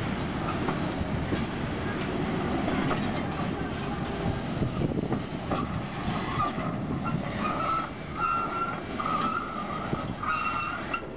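Freight train wagons rolling past, their wheels rumbling steadily with a few sharp clicks over the rail joints. From about halfway through, a high metallic squeal comes and goes in short stretches.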